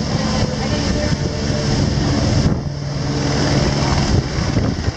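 Helicopter flying close by: a steady, loud rotor and engine noise.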